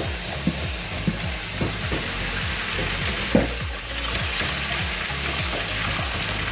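Food frying in hot oil in a pan, a steady sizzle with a few light clicks and knocks.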